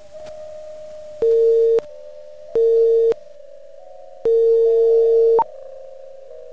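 A steady electronic drone of a few close, slightly wavering tones, broken by three loud, lower-pitched electronic beeps: two short ones, then a longer one lasting about a second.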